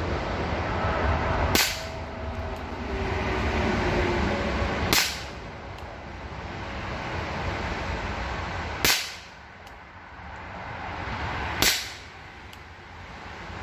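Four single shots from a Rohm RG20 revolver firing .22 Short rounds, sharp light cracks roughly three seconds apart. Between the shots a low background noise swells and fades.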